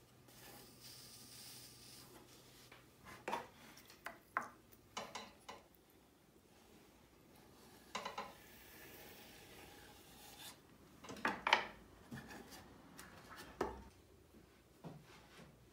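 A tool and fingers scraping and rubbing wet clay on a potter's wheel, a few short rasping strokes at irregular intervals, the loudest near the middle.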